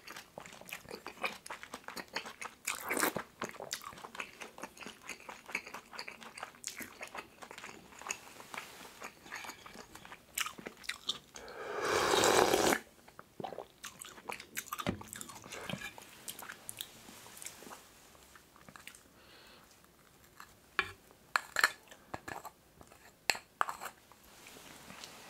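Close-up eating sounds of pork kimchi stew: chewing and small mouth noises, with one long, loud slurp about halfway through as the broth is drunk straight from the pot. A few sharp clicks come near the end.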